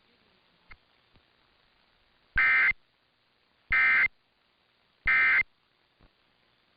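Emergency Alert System End of Message signal: three short bursts of digital SAME data tones, each under half a second, with about a second's gap between them. It marks the end of the alert, here closing a required monthly test.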